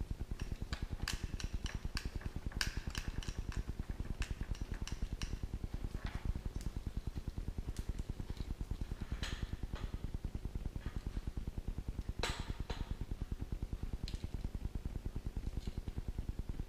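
Small hard parts and packaging being handled and set down: scattered clicks and clinks, busiest in the first few seconds, with a louder clack about twelve seconds in. Under them runs a steady, fast-pulsing low hum.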